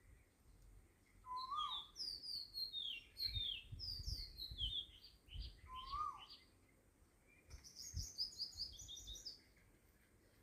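Birds chirping: clusters of quick, high, falling chirps, with a lower short call that rises and then drops, heard twice.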